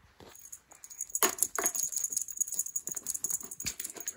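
Cat toy on a scratching post rattling and jingling as its wire arch and pom-poms shake, a fast run of small clicks over a steady high ring.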